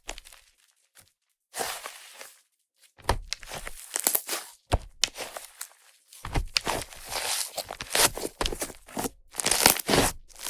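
Fluffy clay slime made with Yoda clay being squished and stretched by hand, the air worked into it popping with a fizzy, sizzly crackle. It comes in short separate bursts at first, then runs almost without a break from about six seconds in.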